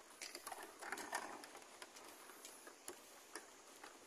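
Footsteps on the wooden planks of a footbridge: light, irregular taps and slaps of bare feet and flip-flops.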